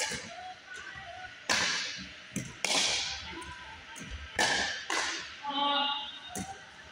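Pickleball rally: paddles hitting the plastic ball in a string of sharp pops, about five hits, each echoing in the gym hall.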